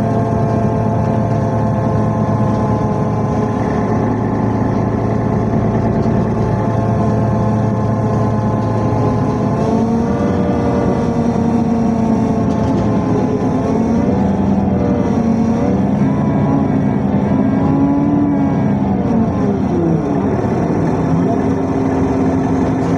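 Metro train running: a steady rumble under a whine of several tones from the electric traction drive. The tones hold steady at first, waver up and down from about ten seconds in, and slide downward near the end.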